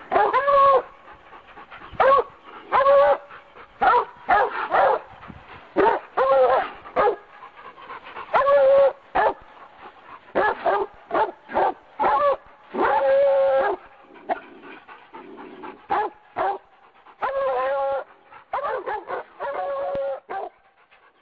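A dog barking and yelping in an irregular run of short, pitched barks, with a few longer, drawn-out whining barks.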